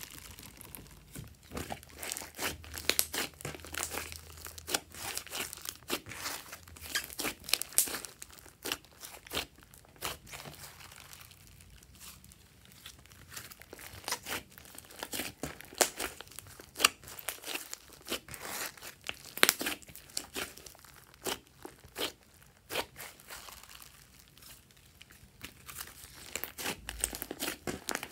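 A large mass of glossy slime being kneaded and squeezed by hand, crackling and clicking in quick bunches with a couple of quieter lulls.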